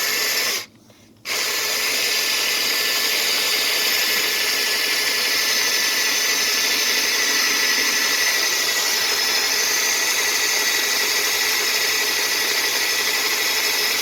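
Drill spinning a Clog Dawg chain-knocker head inside a drain pipe, reaming out tree roots and grinding them to sawdust. It runs, cuts out briefly about a second in, then restarts and runs steadily.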